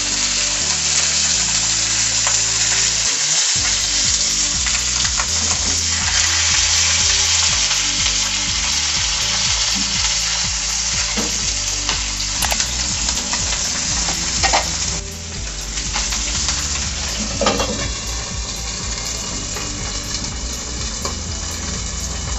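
Whole seasoned trout frying in very hot oil in a frying pan over high heat: a steady, dense sizzle with scattered crackles and pops.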